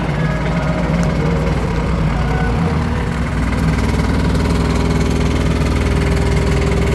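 Small vintage tractor engine running at a slow, low idle as the tractor passes close by, with a steady rapid putter that grows stronger partway through.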